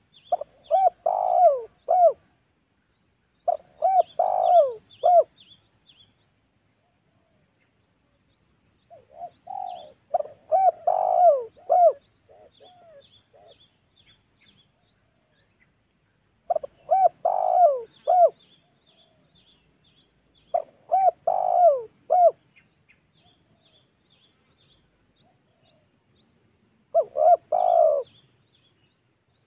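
Spotted dove cooing: six short phrases of three or four rolling coos each, repeated every few seconds. Faint high chirps of small birds come in between the phrases.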